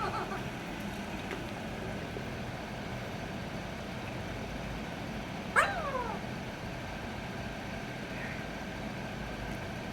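A pet parrot giving one short, sharp call that falls in pitch, about halfway through, over a steady background hiss.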